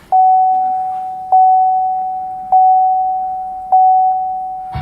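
2017 Chevy Volt's in-cabin warning chime: a single bell-like tone struck four times, about once every 1.2 seconds, each strike fading before the next.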